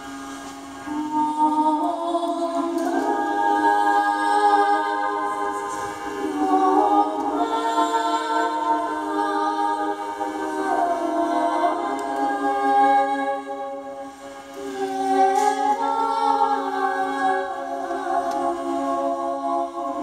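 Medieval-style music on an organistrum: a steady drone under a slow melody of long held notes, with singing over it, the sound filling out about three seconds in.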